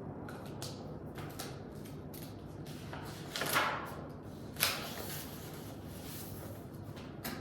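Steady low background hum with a few small clicks, a louder swish about three and a half seconds in, and a sharp knock-like sound a second later that fades over about a second.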